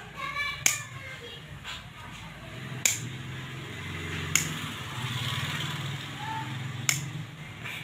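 Large steel tailor's shears snipping cloth: a few sharp blade clicks spaced a second or two apart as small notches are clipped into a salwar's seam allowance, over a low steady hum.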